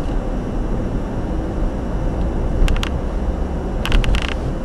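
Steady low road rumble of a car driving across a steel bridge, heard from inside the cabin. A few short, sharp clicks or rattles come about two-thirds of the way through, and a quick cluster of them just before the end.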